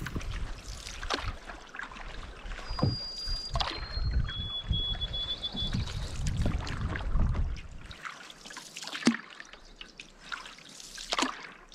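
Canoe paddle strokes, with water splashing and trickling off the blade at irregular intervals.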